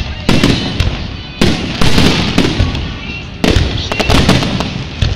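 Aerial fireworks shells bursting in rapid succession in a grand finale: sharp booms about every second, each trailing off in a low rumbling echo, with a quick cluster of bangs about three and a half seconds in.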